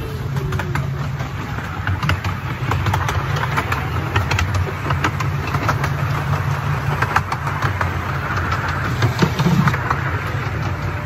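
Miniature railway train running along its track, heard from a carriage: a steady low rumble with many short clicks and rattles.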